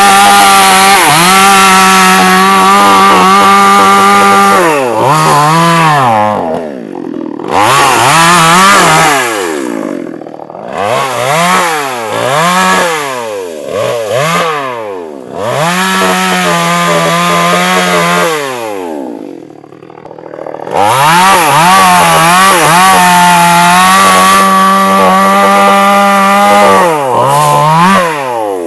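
STIHL chainsaw cutting wood: long stretches held at full throttle, broken by repeated quick revs up and down as the throttle is let off and squeezed again. It drops to a low level briefly about twenty seconds in.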